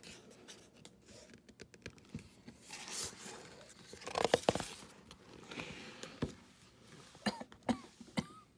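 A hardcover picture book's page being handled and turned by hand: paper rustling and light taps, loudest about four seconds in.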